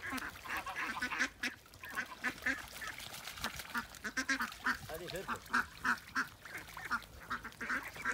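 A flock of domestic ducks quacking, many short calls repeating in quick succession.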